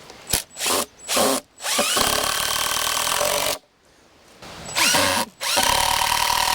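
Power drill driving screws into 4x4 lumber: three quick trigger bursts, a run of about a second and a half, a pause, then another short burst and a longer run, each spinning up with a rising whine.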